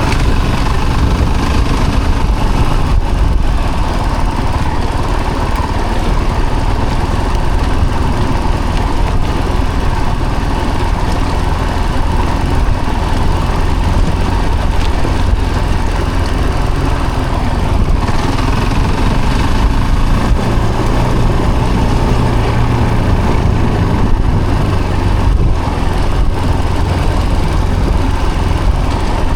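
Vehicle engine running steadily at low revs, a constant low hum with no revving or changes.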